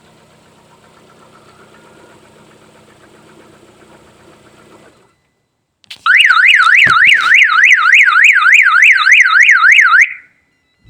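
Lada Kalina 2 engine idling faintly, the idle that is being checked for a knock, until about five seconds in, when it stops. After a second of silence a car alarm siren sounds loudly for about four seconds, sweeping up and down about three times a second, then cuts off.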